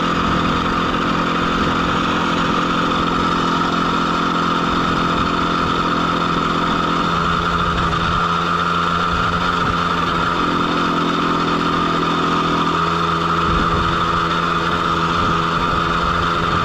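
A 50 cc Zanella motorcycle engine running flat out under load, labouring up a steep climb at full throttle. It gives a steady drone that holds one pitch throughout.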